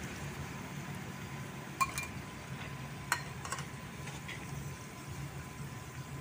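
Metal tongs clinking against a metal basin as jengkol pieces are stirred in liquid: a few sharp clinks, two about two seconds in and two more about a second later, over a steady low background rumble.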